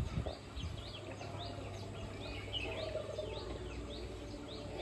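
A bird repeating a short rising chirp about three times a second, over a low, steady rumble of ambience.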